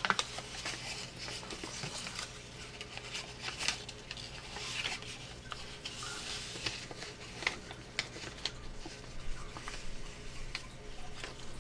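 Paper being folded and creased by hand: irregular rustling and crinkling with small taps and clicks as the folds are pressed down.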